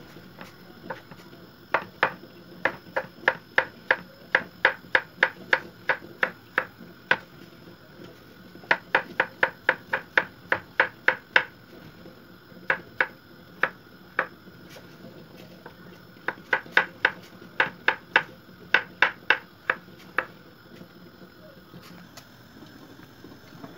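A kitchen knife slicing peeled raw potatoes thinly on a wooden cutting board. The blade taps sharply on the board about three times a second, in four runs with short pauses between them.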